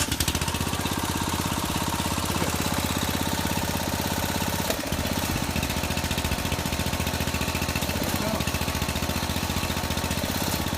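Small gasoline engine on a hydraulic power pack running steadily at a constant speed just after starting. It drives the hydraulic cylinders that press piers down to lift settled steps.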